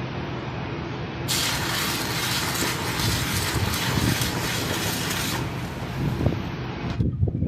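Electric arc welding on a truck's rear axle housing tube: a steady low hum with a crackling hiss from about one to five seconds in, the bright part cutting off near the end.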